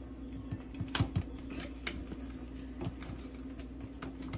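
Wire whisk stirring sauce in a bowl, giving light irregular clicks and taps against the bowl, over a steady low hum.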